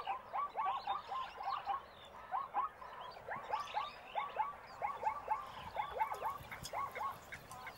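A chorus of animal calls: many short notes, each falling quickly in pitch, overlapping at an irregular rate.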